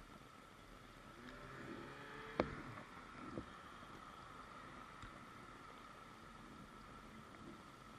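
Faint street noise heard while riding through city traffic: a steady low hum and whine, with a sharp click about two and a half seconds in and a softer one a second later.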